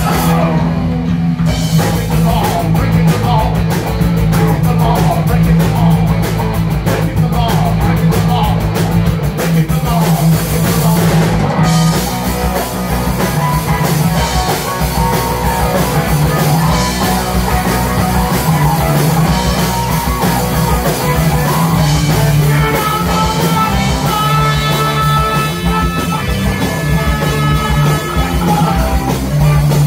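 Live amplified rock band playing: a singer on a handheld microphone over electric guitar, bass guitar and drum kit, loud and steady. The busy cymbal wash drops away about twelve seconds in.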